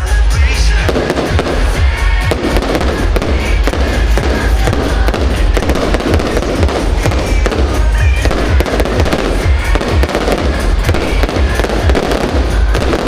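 Fireworks bursting in quick, continuous succession, bangs and crackles over loud show music.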